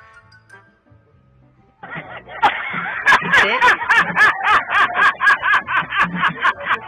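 Quiet for about the first two seconds, then a man laughing hard over music with a steady beat of sharp ticks, about four a second.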